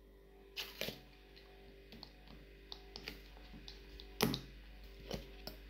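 Scattered small clicks and knocks of plastic slime tubs and lids being handled, the loudest knock about four seconds in, over a faint steady hum.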